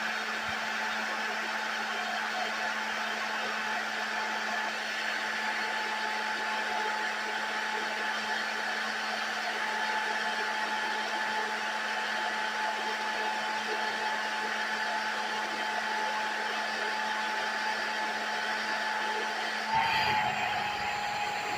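Small electric appliance motor running steadily with a rush of air and a constant whine. Near the end the whine dips briefly and a low rumble joins in.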